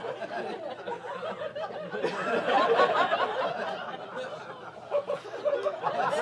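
Comedy club audience laughing after a punchline, the laughter swelling about two seconds in and building again near the end.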